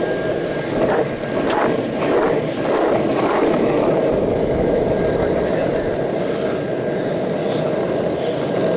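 Longboard wheels rolling over asphalt: a steady rumble.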